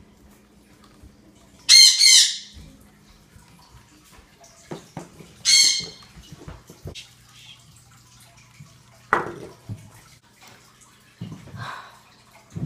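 Two loud, harsh, high-pitched cries, about two and five and a half seconds in, over a low steady hum, with a few fainter knocks later.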